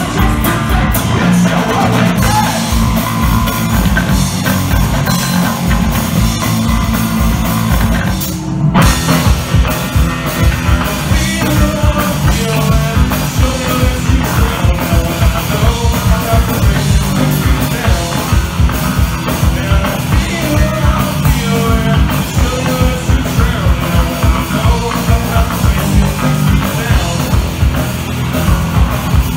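Three-piece punk rock band playing live: electric guitar, electric bass and drum kit. About eight seconds in the band stops for a split second, then comes back in with a steady, driving beat.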